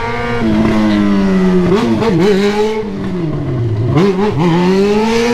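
Motorcycle engine running under the rider, its pitch rising and falling with the throttle, with quick wavering blips about two seconds in and again around four seconds, then rising near the end.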